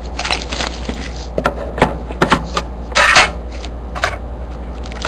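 Clicks, taps and knocks of a trading-card hobby box tin being opened and its contents handled, with a short, louder noisy burst about three seconds in, over a steady low hum.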